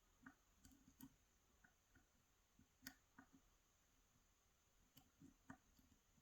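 Faint, irregular small clicks and taps of a lock pick and tension tool working the pins inside a Yale 2000 Plus 10-pin lock, about a dozen scattered ticks with the sharpest around the middle.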